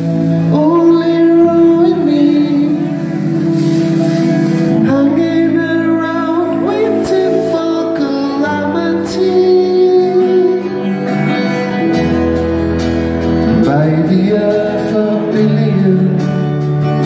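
Rock band playing live in a concert hall: guitars and bass holding long chords, with singing over them. About twelve seconds in, a deep bass note and a quick, regular cymbal pattern come in.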